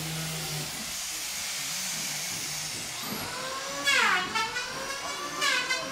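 Handheld electric power tools working wood: a steady hiss, with a motor whose pitch drops and recovers about four seconds in and again near the end as it bites into the board.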